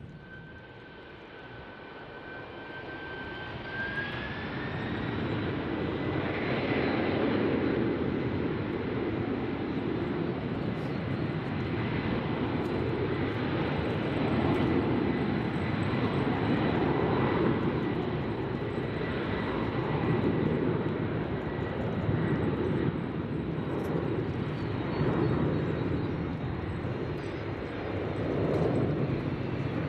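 Jet airliner engines: a loud rumble builds over the first several seconds and then holds, swelling and fading every couple of seconds. A thin high whine rises about three seconds in, then stays steady.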